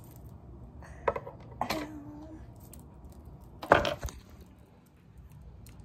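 A few sharp clicks and knocks of a hand handling the phone close to its microphone, with the loudest knock about four seconds in as the hand covers the camera.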